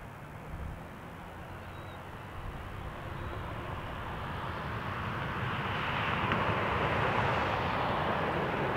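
Boeing 737 MAX 8 on final approach, gear down, its CFM LEAP-1B jet engines growing steadily louder as it comes in.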